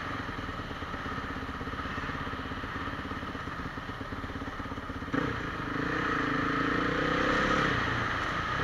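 Honda CRF450 single-cylinder four-stroke motocross engine, heard from on the bike: off the throttle at low revs with a rapid, uneven pulsing, then opened up sharply about five seconds in, revs climbing for a couple of seconds before easing off near the end.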